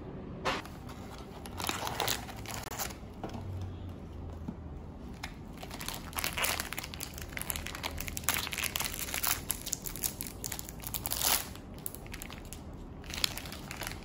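Crinkly foil-lined wrapper of a sleeve of Oreo cookies being pulled and torn open by hand, crackling in irregular bursts that are loudest past the middle.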